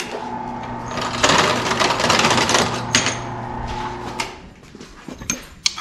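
An electric grinder runs for about four seconds, grinding metal to ease the fit of a steel rod into the accelerator-pedal arm. The grinding is loudest in the middle, and the grinder stops a little after four seconds in. A few light metal clinks follow near the end.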